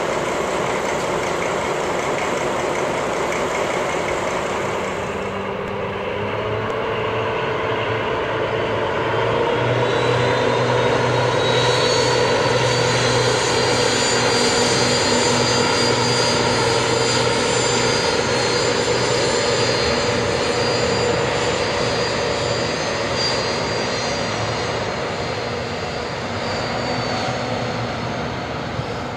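DR class 228 (V180) diesel-hydraulic locomotive running under power: a steady engine drone with a high whine. The whine rises about ten seconds in, then holds and eases off near the end.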